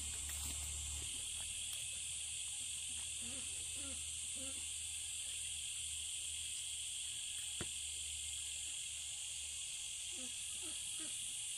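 Steady chorus of insects, a continuous high-pitched drone that holds at an even level throughout.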